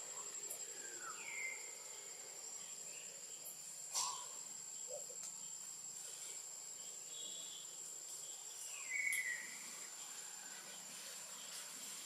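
Steady high-pitched insect drone with a few short, high calls about a second in and again near nine seconds, and a single click at about four seconds.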